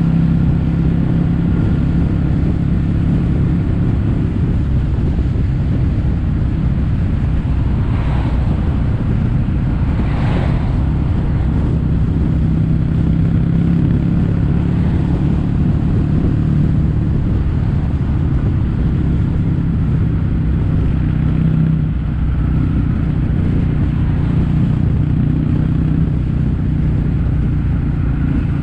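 Kawasaki W800's air-cooled parallel-twin engine running at a steady speed, heard through Yamato stainless-steel caburton-style silencers: a steady low exhaust note.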